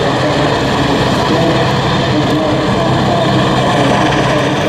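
Three-engine EH-101 Merlin helicopter flying low, its turbine engines and rotors running loud and steady.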